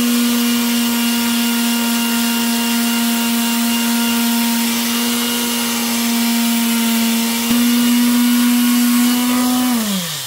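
Electric power tool motor running at a steady pitch while the ground-down weld on a steel exhaust header pipe is sanded with 360-grit paper; it gets a little louder about three-quarters of the way through and winds down near the end.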